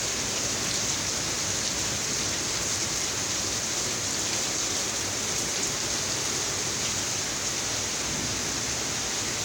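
Heavy rain pouring steadily onto pavement and lawns, an even hiss with no break.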